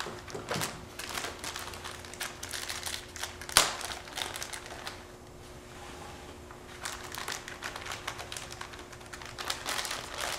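Plastic bag of pre-cut cotton cleaning patches crinkling and rustling in gloved hands as a patch is pulled out, with one sharp click about three and a half seconds in.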